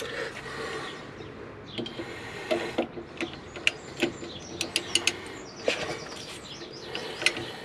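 Irregular clicks and metal knocks of a socket ratchet working a bolt on a Ford Transit's rear brake caliper, with a few faint bird chirps.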